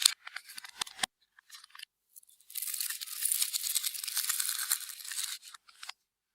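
Clear slime being squeezed and stretched by hand, giving a few sticky clicks and then about three seconds of dense crackling and popping.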